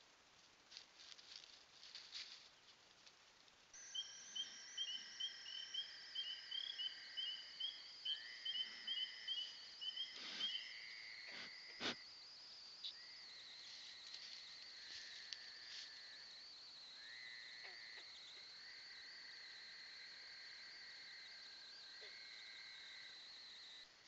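Night chorus of frogs and insects: a steady high whine, a quick series of short high peeping notes for the first several seconds, and repeated lower trills. It begins after a few seconds of faint rustling and ticking. Two sharp knocks come partway through, as something touches the trail camera.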